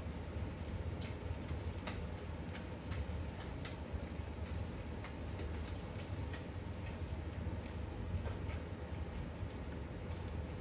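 Blackened tilapia fillets frying in a pan: a steady sizzle with scattered crackles and pops.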